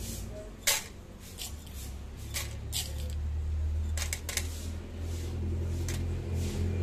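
Whole coffee beans scooped with a metal spoon and tipped into a cup on a kitchen scale, giving scattered sharp clicks and rattles of beans and spoon. A steady low hum runs underneath and grows a little from about halfway.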